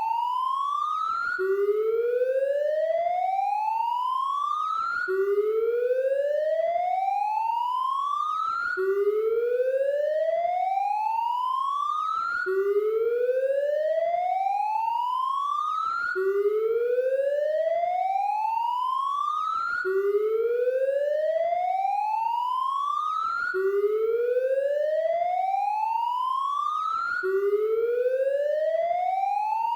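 Police siren wailing: its pitch climbs steadily for nearly four seconds, then drops quickly and starts climbing again, repeating evenly about every four seconds.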